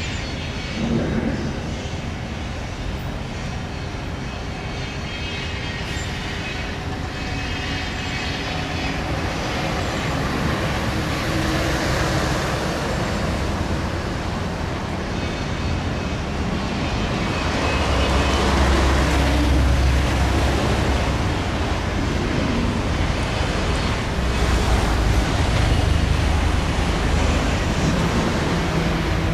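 Steady outdoor background noise: a rushing hiss over a low rumble. The rumble swells about two-thirds of the way through and again near the end.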